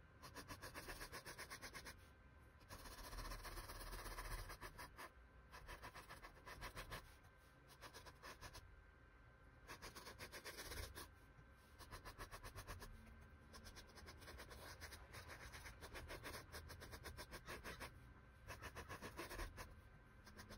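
Faint, fast, rhythmic scratching of a paintbrush on canvas, sped up by the timelapse, in stretches broken by short pauses.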